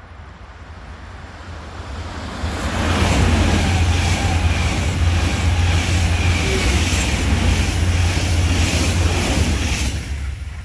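Coupled DB ICE-T electric multiple units (class 411 and 415) passing at speed: a rush that swells as the train approaches, holds loud and steady with a rhythmic beat about twice a second as the wheelsets go by, then falls away near the end.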